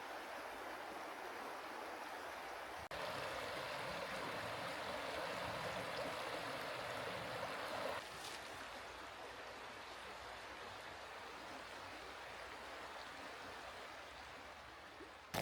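Mountain stream flowing steadily, a continuous rush of water. Its level jumps suddenly about three seconds in and drops back just as suddenly about eight seconds in, as at cuts between shots.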